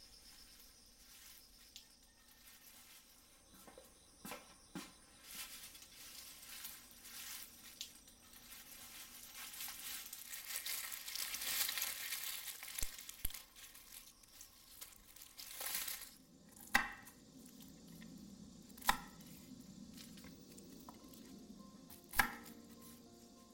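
Kitchen food-preparation noises: a hiss swells and fades around the middle, then three sharp knocks of kitchen utensils spaced a couple of seconds apart.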